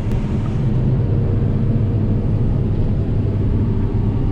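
Self-leveling combine harvester running steadily under load while cutting wheat, heard from inside the cab: an even, low engine and machinery hum.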